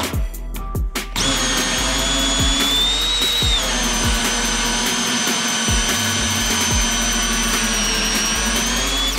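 Cordless drill spinning a hole saw through an OSB subfloor, its motor whining at a steady pitch. It stops briefly near the start, then runs on steadily, dipping slightly in pitch about three and a half seconds in.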